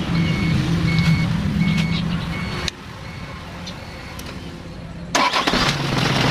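Isuzu 4HL1 four-cylinder diesel engine turning over with a repeating high warning beep, which stops about two and a half seconds in. About five seconds in, the engine fires and settles into a steady idle, starting after a cranking-only no-start.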